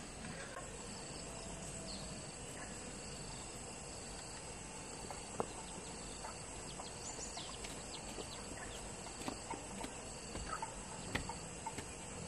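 Insects shrilling steadily in the background, with a short pulsing call repeating about twice a second, a few brief chirps and scattered light knocks.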